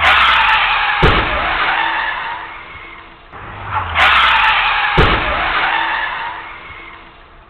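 Car tyres skidding in a loud screech, then a heavy crash impact about a second later, with a faint ringing tone lingering after it. The same skid and crash comes again about four seconds in.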